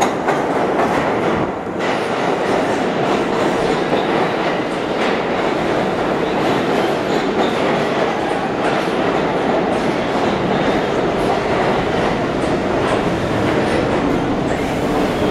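New York City Subway A train rolling into the station past the platform, a steady rumble of wheels on rail with occasional clicks as the wheels cross rail joints.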